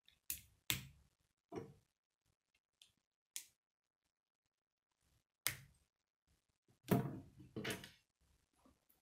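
K'nex plastic rods and connectors clicking as they are snapped together: about seven sharp clicks and knocks at irregular intervals. The loudest are two knocks near the end as the finished frame is set down on the wooden table.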